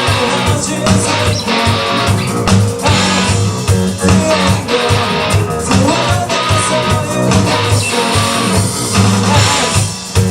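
Live rock band playing an instrumental passage: strummed electric guitars over a pulsing bass line and drums.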